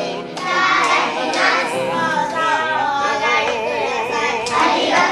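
A group of young children singing together in unison, many voices at once.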